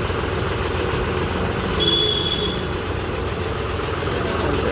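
John Deere 5310 tractor's three-cylinder diesel engine idling steadily. About two seconds in, a brief high-pitched squeal with a hiss lasts about a second.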